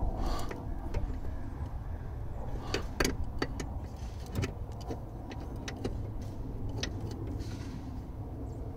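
Scattered small clicks and knocks of a hand working in an engine bay, tightening a plastic A/C pressure switch onto its metal-threaded fitting. Underneath is a steady low background rumble.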